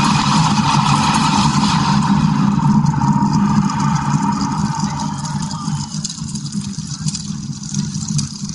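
Show soundtrack played loud over a hall's sound system: a low, steady rumbling effect. Its higher part fades out about five or six seconds in, leaving the low rumble a little quieter.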